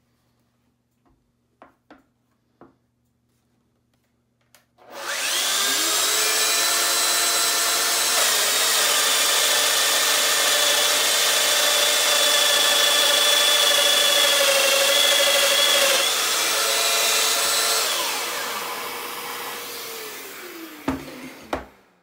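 Festool Domino XL DF 700 joiner with its 14 mm cutter switching on, running at speed and plunging into a hardwood handrail fitting to cut a mortise, with the attached Festool dust extractor running too. The sound starts suddenly about five seconds in and winds down with falling pitch near the end.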